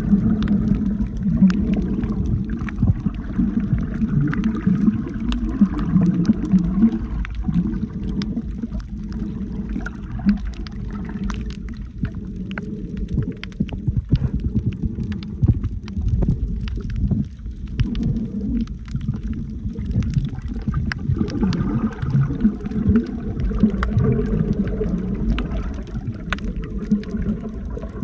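Muffled underwater sound of sea water moving around a camera in a waterproof housing, with scattered small clicks and crackles.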